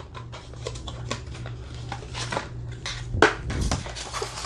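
A laptop charger and its packaging being handled by hand: a run of light clicks, taps and rustles, with a louder knock about three seconds in.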